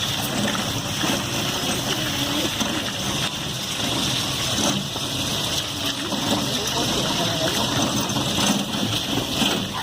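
Steady rushing, rolling noise of a wheeled dog-sled training cart being pulled along by a team of Alaskan huskies, with faint voices or dog whines underneath.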